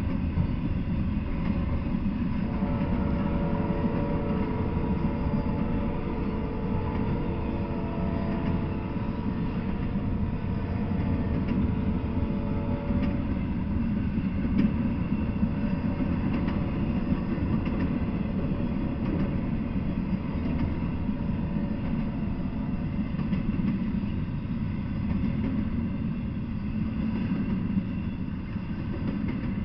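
Intermodal container freight train rolling past on well cars: a steady low rumble of wheels on rail, with faint steady ringing tones through the first half.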